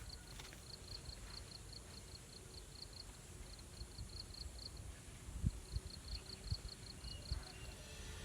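Insects chirping in a steady rhythm, several short high chirps a second, pausing briefly near the middle, over a low background rumble, with a few soft thumps in the second half.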